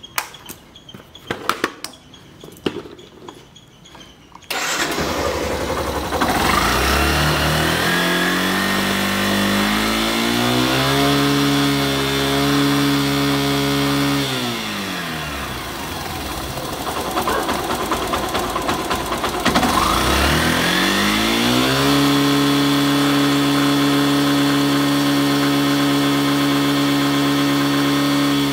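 Yamaha Saluto motorcycle's single-cylinder four-stroke engine starting about four seconds in after a few small clicks. It is revved up and held high, drops back to idle, then is revved and held high again, while its pickup coil's output voltage is measured.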